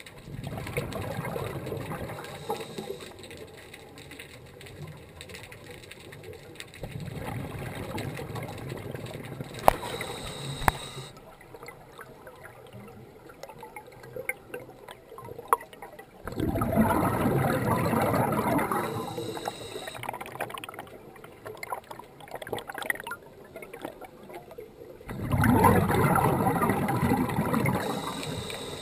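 Scuba regulator exhaust heard underwater: four bubbling rushes of exhaled air, each two to three seconds long, coming about every eight to nine seconds, with quieter stretches between.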